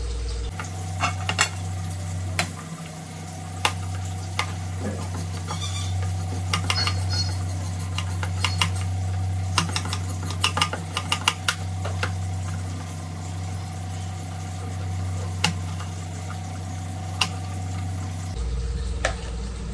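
Kitchen knife cutting and chopping green vegetables: a string of sharp taps, some in quick runs, over a steady low hum.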